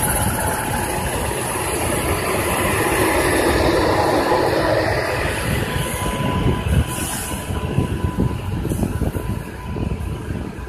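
Indian Railways passenger train hauled by an electric locomotive, rolling slowly past along a platform. A dense rumble of the locomotive and first cars gives way, from about six seconds in, to wheels clacking over rail joints as the coaches pass, fading toward the end.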